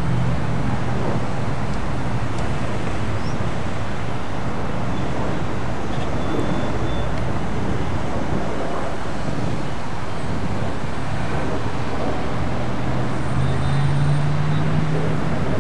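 Steady road noise and engine hum of a car being driven. Near the end a low hum grows louder.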